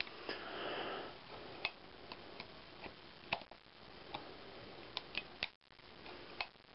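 A few sharp, separate metallic clicks from a Colt Third Model Dragoon cap-and-ball revolver's cylinder turned by hand with the hammer cocked, with a quick cluster of clicks around the middle. The cylinder turns freely because its latch isn't engaged, a sign of the revolver being out of time.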